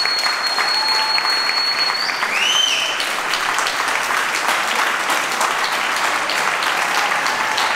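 Audience applauding steadily, with dense clapping. A high steady whistle is heard for about the first two seconds, then a short rising-and-falling whistle.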